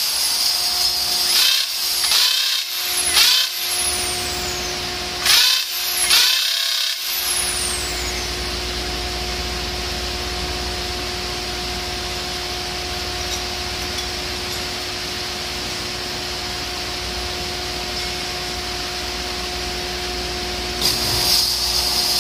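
Corded electric drill turning a valve seat cutter in an aluminium cylinder head in several short bursts during the first seven seconds, the motor spinning up and down each time. After that comes a steady machine hum until a last burst near the end.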